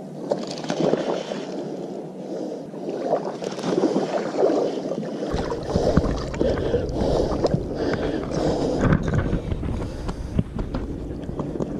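Water splashing and sloshing at the shoreline as a hooked smallmouth bass is fought and brought in, in irregular bursts. Wind rumbles on the microphone from about five seconds in.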